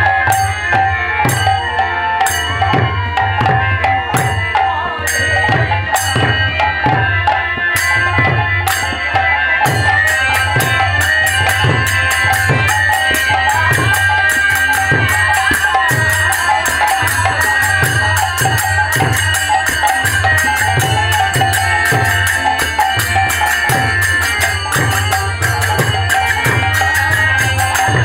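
Instrumental kirtan music. A hand drum beats a steady rhythm of low strokes under sustained held tones, with small metal cymbals clashing in time. About a third of the way in, the cymbal strokes become much faster and denser.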